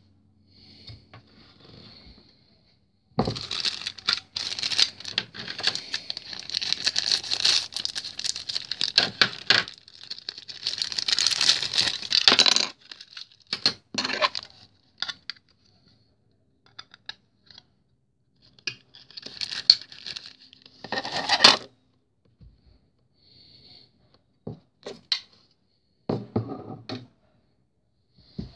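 Plastic packaging being handled and pulled apart by hand. A long stretch of rustling runs from about three to thirteen seconds in, then shorter rustles and clicks follow.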